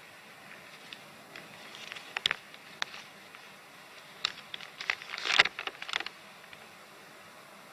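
A sheet of paper being handled and unfolded: scattered crackles and rustles, with the loudest burst of crackling about five seconds in, over a faint steady hiss.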